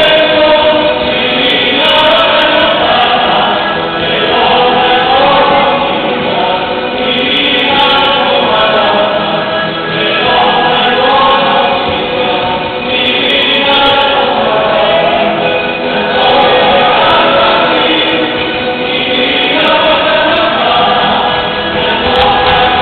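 Cueca music with a group of voices singing, loud and steady, the sung phrases changing every few seconds.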